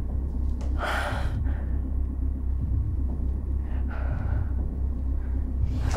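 A woman's distressed, sharp gasping breath about a second in and a fainter breath near four seconds, over a steady low rumbling drone.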